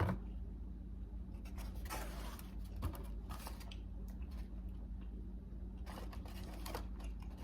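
Close-up chewing of bread, with a few short rustling handling sounds, over a steady low hum.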